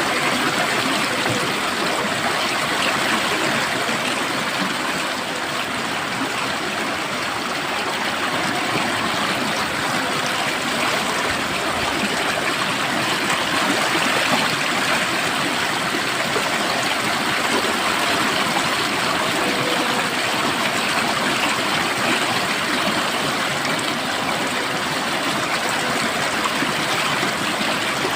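Water flowing steadily over rocks in a stream, an even rushing with fine trickling and gurgling.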